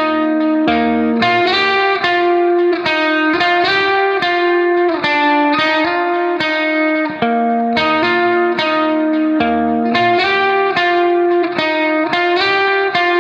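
Background music: a steady run of plucked guitar notes over a bass line.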